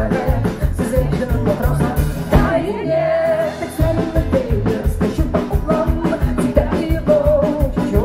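Live rock band playing: strummed acoustic guitar, electric bass and drum kit under a sung melody. Drums and bass drop out for about a second, a little over two seconds in, then come back.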